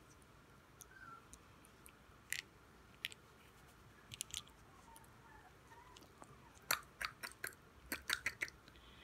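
Chihuahua puppy chewing and biting on a yarn pom-pom toy: soft scattered clicks and smacks of its mouth, coming in a quick cluster near the end.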